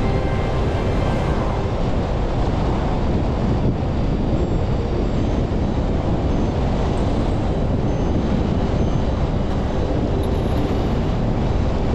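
Steady road and wind noise of a car driving along a paved road, an even rumble strongest in the low end.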